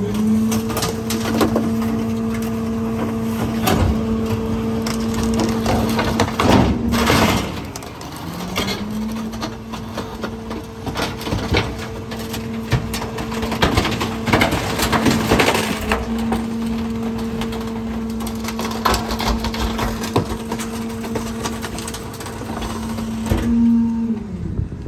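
Garbage truck running its hydraulic packer: the engine speeds up to a steady drone, drops briefly about seven seconds in, comes back up and winds down near the end. Over it, bulky debris cracks, splinters and crunches as it is compacted.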